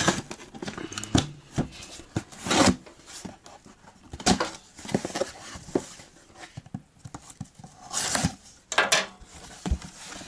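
Scissors slitting the packing tape on a cardboard shipping box, then the box being handled and its flaps pulled open: irregular scraping, rasping and rustling of cardboard and tape, with several louder rasps.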